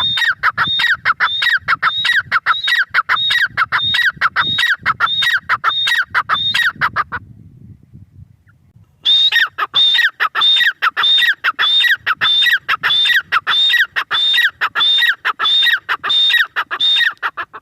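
Grey francolin (teetar) calling: a loud series of shrill, evenly repeated notes, about two a second, in two long bouts with a pause of about two seconds between them.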